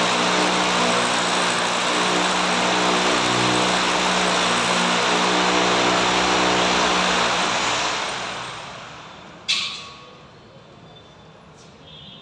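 Corded electric drill boring into a concrete ceiling, its motor running steadily at full speed. About eight seconds in, the motor is released and spins down, and then there is one sharp click.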